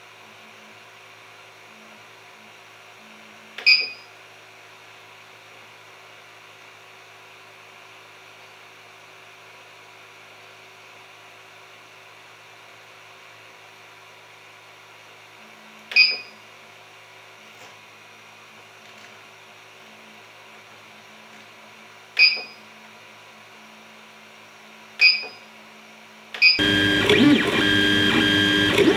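A 3D printer's LCD controller beeps briefly five times, spread out, as its menu knob is clicked to set E-steps. Near the end the printer's stepper motors start up loudly, a steady mechanical whir with several steady tones as it prints.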